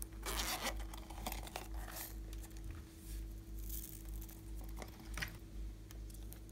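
Hands kneading and stretching glossy slime: sticky crackling in several short bursts, with a few small clicks, over a steady low hum.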